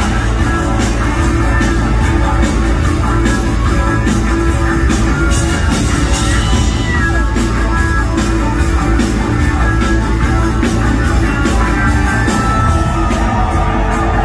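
A live band playing rock music with a steady drum beat, recorded from within the concert audience.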